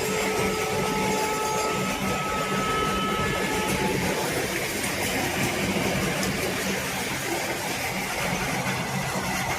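A train running past on the track: a steady, continuous rumble of wheels on rails.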